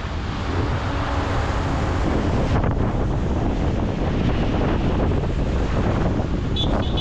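Loud, steady rushing wind noise buffeting the microphone of a camera on a moving bicycle.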